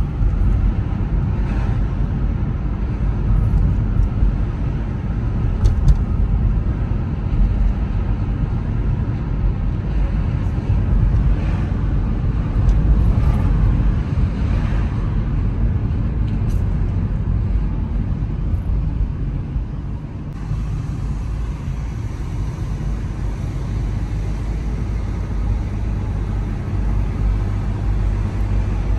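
Car driving on town streets: a steady low rumble of engine and tyre noise, easing off a little about twenty seconds in.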